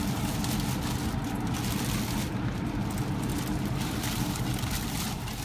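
Thin plastic bag crinkling and rustling as hands unwrap a pair of shoes from it, over the steady low hum of the car's engine idling.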